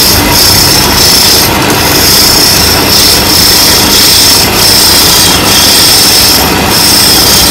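Steel turning chisel cutting into a spinning wooden leg on a wood lathe: a loud, steady scraping hiss with a high edge, easing off briefly every second or so.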